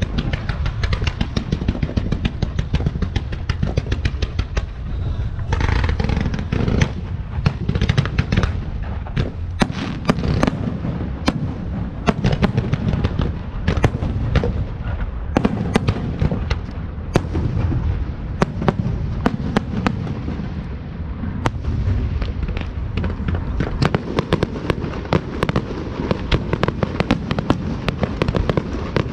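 Fireworks display: a rapid, unbroken barrage of sharp bangs and crackles over a continuous low rumble of booms.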